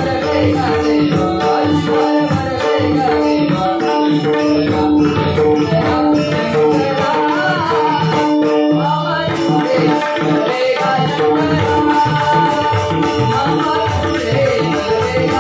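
Marathi devotional bhajan played live: tabla and pakhawaj drums beat a steady rhythm under jingling zanj cymbals and held notes, with the lead singer's voice rising and falling at times.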